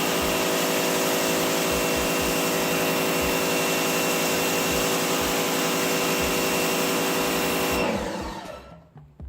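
Sun Joe SPX3000 electric pressure washer running, its motor and pump humming steadily under a loud hiss of water spraying from the 40-degree fan tip. About eight seconds in it stops and winds down.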